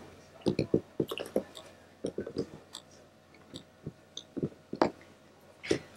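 Irregular light clicks and taps of handling noise: fingers pressing and rubbing on a plastic-wrapped model kit box held close to the microphone.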